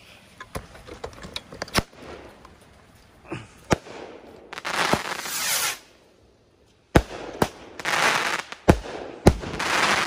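Fireworks going off: a series of sharp bangs and pops, with three hissing rushes of about a second each. A rocket climbs, and its aerial shell bursts into a spray of stars.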